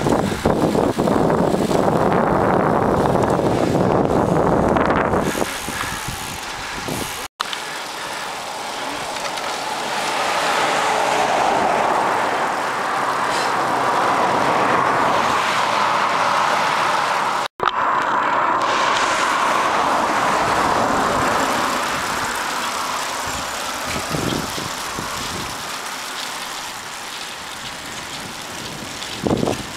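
Wind rushing over the microphone and road noise of a bicycle moving at speed: a heavy low buffeting for the first five seconds or so, then a steadier rushing noise. It cuts out dead for a split second twice, about seven seconds in and again about ten seconds later.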